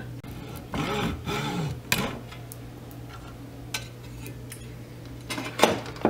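Workbench handling sounds as a plastic connector is set in a bench vise: rubbing and scraping with a few light clicks, and a sharper knock near the end.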